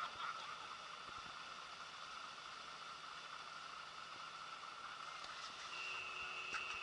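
Faint, steady sound of a distant heavy truck driving through the flooded winter-road river crossing. Near the end a thin, steady high tone joins in.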